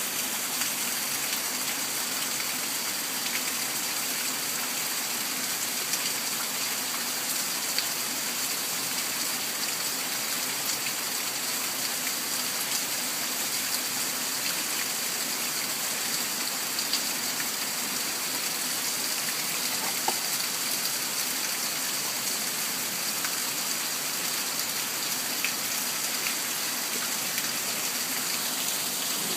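Steady rain falling: an even hiss with many small scattered drop ticks.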